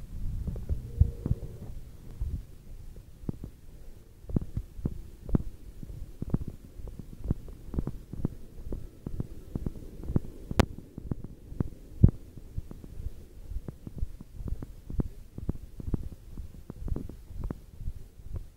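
Footsteps walking at an even pace, about two dull low thumps a second, the handheld phone jolted at each step. A single sharp click a little past the middle.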